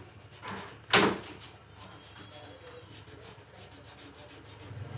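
A cloth wiped over a car's painted wheel-arch panel: a short swish, then a louder, sharper wiping stroke about a second in, then faint rubbing.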